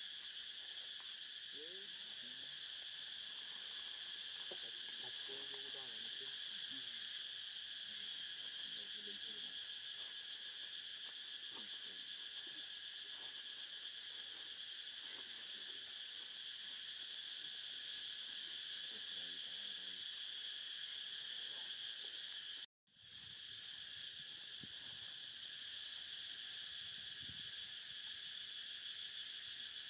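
Steady, high-pitched drone of an insect chorus, holding level throughout apart from a momentary cut about three quarters of the way through.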